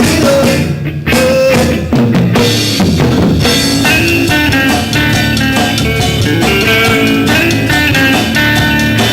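Live rock band playing, with the drum kit to the fore under guitar and bass. There is a short break about a second in, then the full band comes back in.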